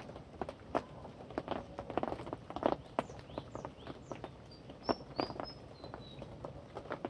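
Rain falling, big drops tapping irregularly and close by, several a second. A few faint, short, high bird chirps come in about halfway through.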